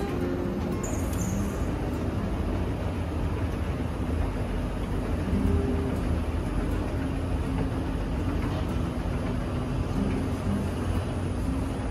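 Steady low rumble and hiss of an escalator running.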